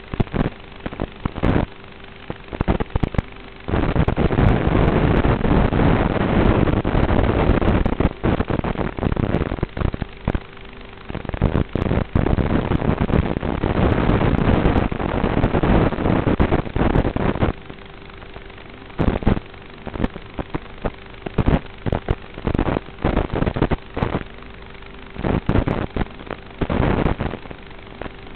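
Audio carried over an FPV racing drone's analog video link: constant crackling static, with long stretches of loud rushing noise in the middle and a steady hum under the quieter stretches at the start and end.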